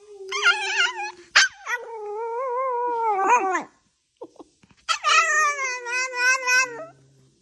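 A dog making long, wavering, pitched vocal calls, three in a row, the middle one about two seconds long.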